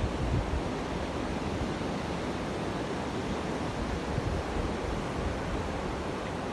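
Sea waves washing in as a steady rush, with wind buffeting the microphone in uneven low gusts.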